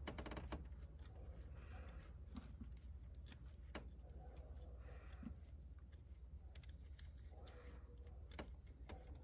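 Near-quiet, with faint, scattered small clicks and ticks from handling a steel thread-repair insert on its installation tool.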